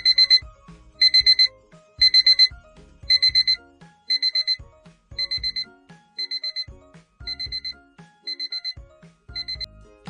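Digital alarm clock beeping in quick bursts of four high beeps, a burst about once a second, growing quieter, over background music.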